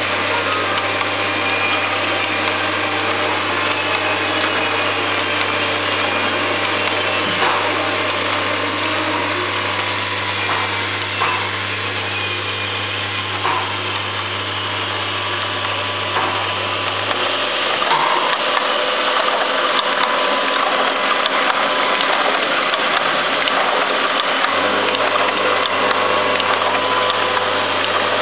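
Varistor lead-forming machine running with a steady mechanical whir and clatter and a few light clicks. A low hum under it cuts out for several seconds about two-thirds of the way through, then returns.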